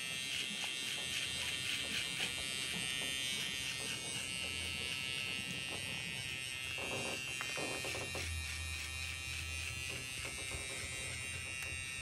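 Electric hair clipper running with a steady high buzz as it trims beard hair along the neck.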